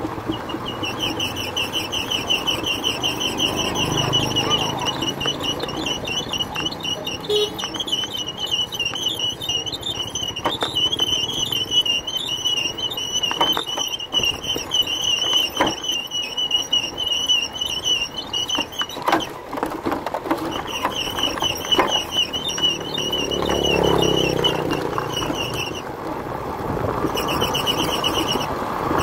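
Motorbike running along a mountain road, its engine and road noise swelling and easing, with scattered knocks. Over it a high, fast-pulsing buzz that drops out twice for a second or two.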